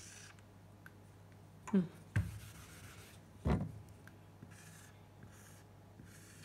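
Dry-erase marker drawing on a whiteboard: soft, faint rubbing strokes as the lines of a square are drawn, with a couple of dull knocks in the middle.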